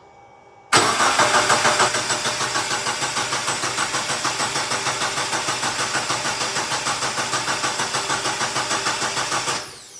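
Mitsubishi Lancer GT's 2.4-litre four-cylinder engine being cranked by the starter for about nine seconds, with an even beat of about six pulses a second and no rise in speed. The starter is run by jumping power across the pulled starter relay's socket, so the starter motor itself cranks the engine.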